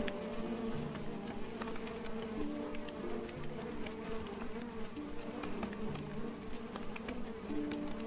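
Honeybees from an opened top bar hive buzzing in a steady, dense hum, with scattered faint ticks.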